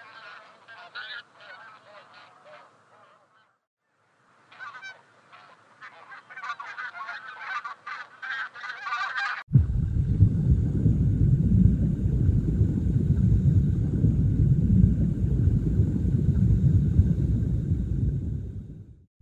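A white domestic goose honking in quick, short calls, with a brief pause partway through. About halfway in this gives way abruptly to a louder, steady low rumble, which cuts off just before the end.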